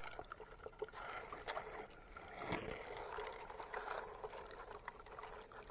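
Running water splashing and trickling, a steady wash with many small irregular drips and splashes.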